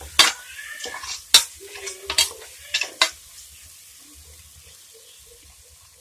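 Metal ladle knocking and scraping against an aluminium pressure cooker as chopped tomatoes are stirred into frying onions and spices, over a soft sizzle of oil. The knocks stop about three seconds in, leaving the quiet sizzle.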